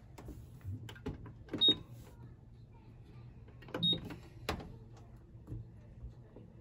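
Top-loading washing machine's control panel beeping twice, about two seconds apart, as its buttons are pressed, with the clicks of the buttons and the program dial being turned.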